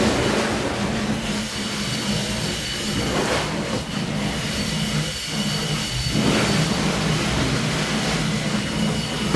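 Harvey & Co. double-acting Cornish beam winding engine, 27-inch cylinder, running under steam: a steady low rumble under a hiss that swells about every three seconds. Very quiet for its size.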